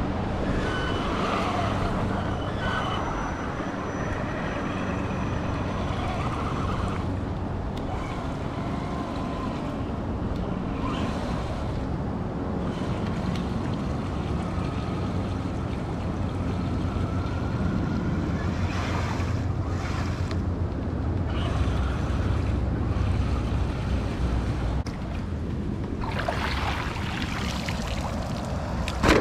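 Traxxas E-Revo electric RC monster truck running, its motor whine shifting in pitch under a steady rushing noise, with a louder burst near the end.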